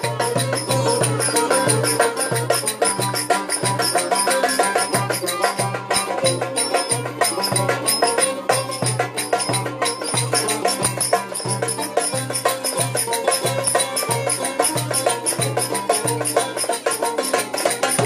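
Instrumental Turkish folk dance tune (oyun havası) played live on a bağlama, over a steady low drum beat of about two and a half beats a second.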